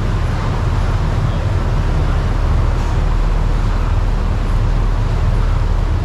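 Steady low rumble with an even rushing hiss over it, from the river rapids ride's moving water and machinery around the raft.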